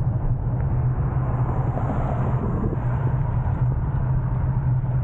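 Steady low rumble of wind on the microphone and road noise while riding along on a Jetson Bolt Pro electric bike.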